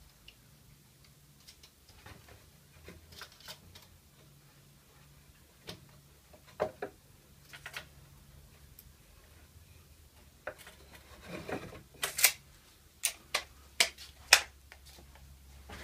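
Scattered light clicks and knocks of pallet-wood boards being handled and set into a wooden frame on a workbench, with a run of sharper knocks a few seconds before the end.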